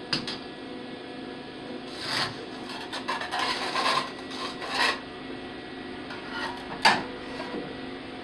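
Metal being scraped by hand in short, irregular strokes, cleaning a spot down to bare metal for a better welding ground. A single sharp clack near the end.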